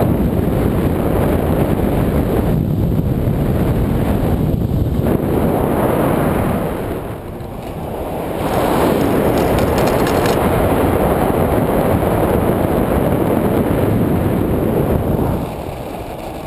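Loud wind buffeting the camera's microphone during a tandem paraglider flight. It eases briefly about halfway through and drops off near the end.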